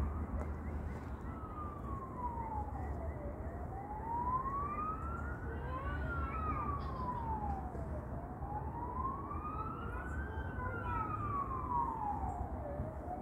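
An emergency vehicle siren on a slow wail, rising and falling in pitch about every four and a half seconds, three times over, above a steady low rumble.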